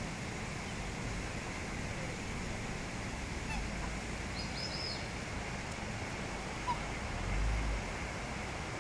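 Waterfowl calling over a steady background hiss: a quick run of four high peeps about halfway through, and a low rumble near the end.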